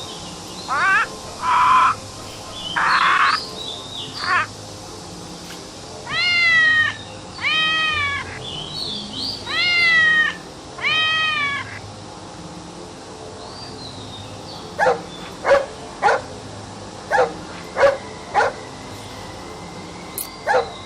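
Recorded animal calls played back one after another: a few cries in the first seconds, then about four drawn-out calls that rise and fall in pitch, then a quick run of about six short, sharp calls near the end.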